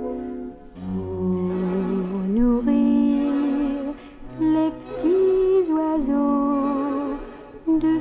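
Slow orchestral song music, its melody moving in long held notes with vibrato.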